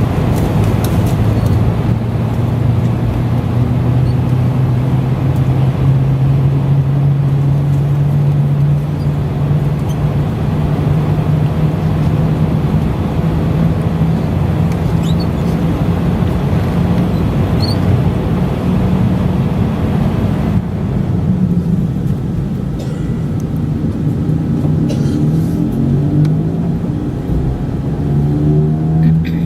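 Cabin noise of an Airbus A320-family airliner heard from inside: the jet engines and airflow make a loud steady rush over a low hum, and the hum rises in pitch about eight seconds in. About twenty seconds in the hiss suddenly drops, and rising tones come in near the end.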